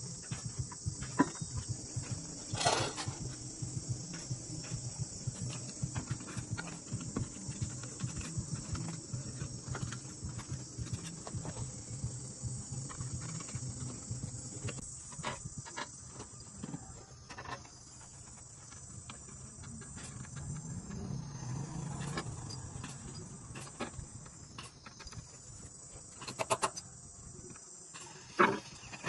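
Steady high-pitched insect chirring over a low background rumble, with scattered light clicks and knocks. Louder knocks come a few seconds in and twice near the end.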